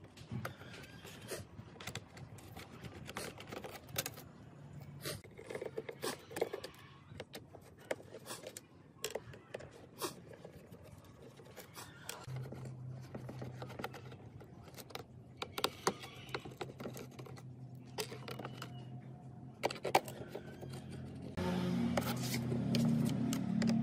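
Scattered clicks, taps and scrapes of hand tools on a laptop's plastic and metal parts during restoration work. About halfway a steady low hum joins, and it gets louder and fuller near the end.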